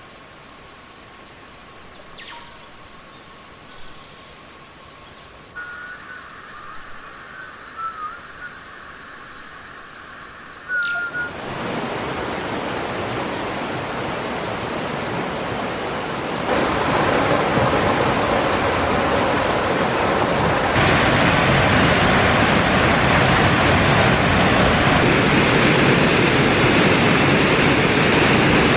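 Quiet forest with a steady high tone and a few short bird chirps and whistles. About eleven seconds in, rushing water from a jungle stream and waterfall starts suddenly and grows louder in two steps.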